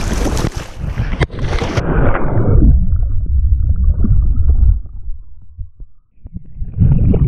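Sea water and wind noise, then a plunge underwater about two seconds in: the sound turns muffled into a low churning rumble of water and bubbles, dies down briefly, and comes back as splashing when the microphone breaks the surface near the end.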